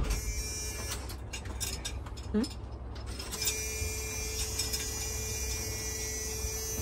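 Step-van food truck's ignition tried on a dead battery: a few faint clicks, then a thin steady electric buzz from about halfway in, and the engine does not crank.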